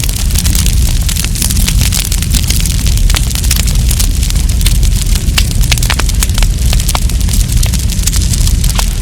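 Wood campfire burning, with dense, irregular crackles and sharp pops over a steady low rumble.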